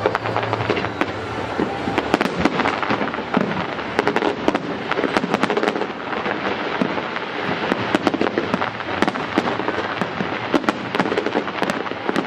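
Fireworks display in full barrage: a dense, unbroken run of bangs and crackles, many shots a second.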